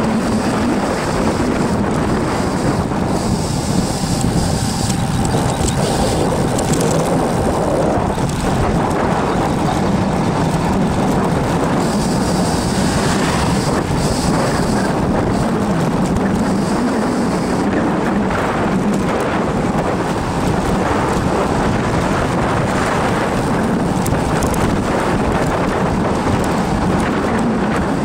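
Wind rushing over the microphone of a camera on a bicycle descending a mountain road at speed: a loud, steady wind noise.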